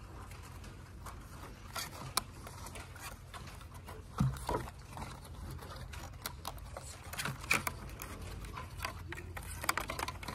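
Thin black ash splints clicking and rustling against each other as they are bent and woven into a basket, in scattered short clicks over a steady low room hum, with one louder brief sound about four seconds in.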